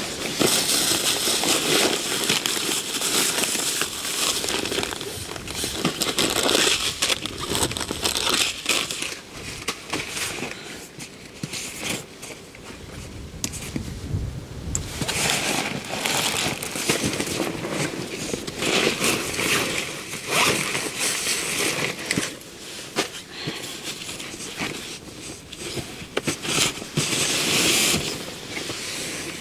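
Rustling and crinkling of nylon backpack fabric and plastic bags as a hiking backpack is unpacked by hand, coming in irregular bursts with a quieter stretch partway through.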